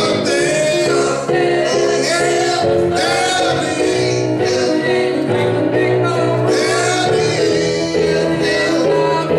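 A man singing a gospel-blues song into a handheld microphone over instrumental backing of held notes that change every second or so.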